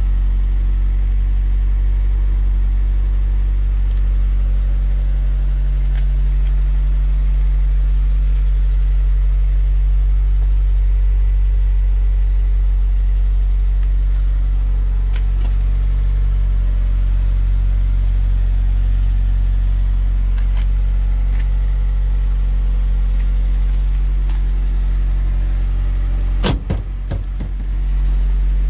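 Honda Prelude 2.0 16v's four-cylinder engine idling steadily, heard from inside the cabin. A few clicks and knocks come near the end.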